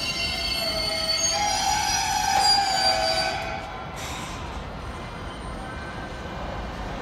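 Tobu 100 series Spacia electric train squealing in several high tones as it brakes to a halt. The squeal cuts off about three and a half seconds in as the train stops, leaving a quieter steady background noise.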